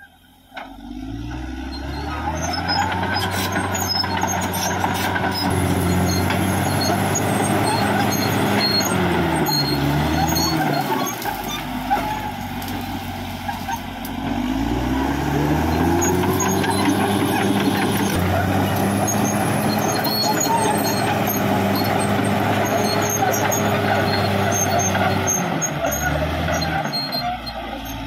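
Caterpillar D6R XL bulldozer's diesel engine working under load: it revs up at the start, sags and wavers about ten seconds in, climbs again after about fifteen seconds and holds steady, then drops back near the end.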